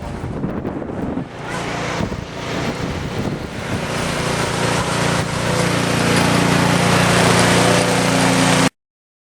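Snow blower engine running steadily, its sound gradually growing louder, then cutting off abruptly near the end.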